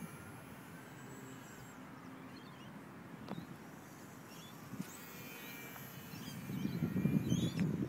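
Faint whine of a distant Parkzone RC plane's electric motor, its pitch sliding up and down in the first couple of seconds, with birds chirping now and then. A louder low rumble hits the microphone near the end.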